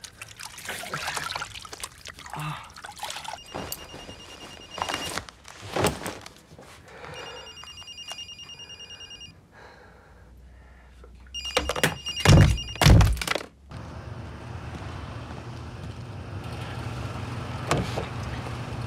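A telephone ringing three times, each a trilling ring of about two seconds. Two heavy thuds come right after the last ring, followed by a steady low hum.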